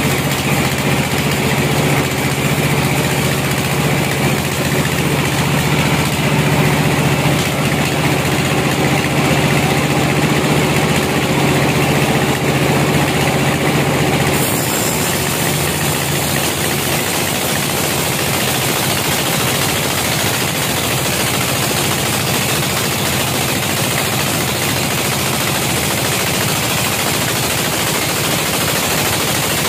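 Bandsaw sawmill running, its blade cutting lengthwise through a log, with the steady drone of the mill's motor. About halfway through, the hum thins and the sound turns to a noisier, even hiss.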